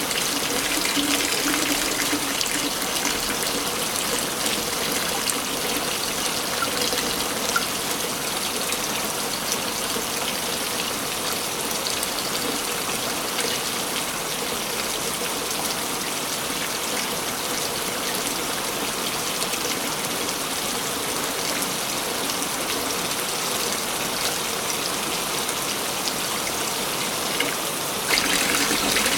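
Waterfall: a steady rush of falling water. About a second before the end the sound turns brighter and a little louder.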